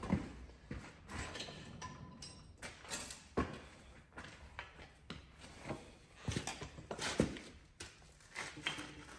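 Scattered, irregular knocks and clinks of hand tools and metal engine parts being handled during an engine teardown.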